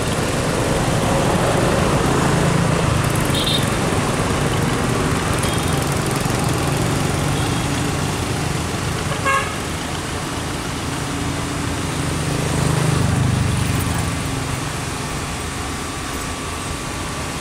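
Boat engine running steadily, swelling twice as it passes, with a short horn toot about nine seconds in.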